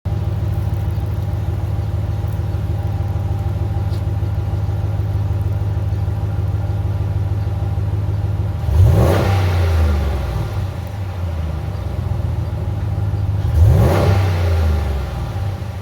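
2019 Ram 1500 Classic pickup running through its stock exhaust, idling steadily, with two quick revs of the throttle, one a little past halfway and one near the end, each dropping back to idle.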